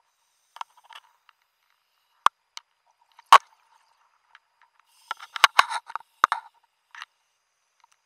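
Underwater, a diver's wrist-mounted camera housing knocking and scraping against the wreck's structure as the hand grabs hold: scattered sharp clicks, then a quick run of crackling taps about five seconds in.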